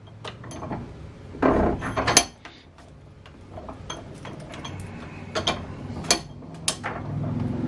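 Scattered metallic clicks and knocks of tools and parts being handled on a workbench at a bench vise. Under them, the noise of a passing motorbike rises and grows louder near the end.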